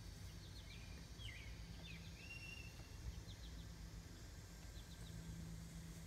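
Faint birdsong: scattered short chirps and a few gliding whistled notes, one held a little longer about two seconds in, over a low steady hum.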